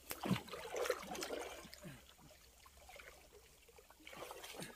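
Water trickling and dripping, with a few small splashes, loudest just after the start and again near the end.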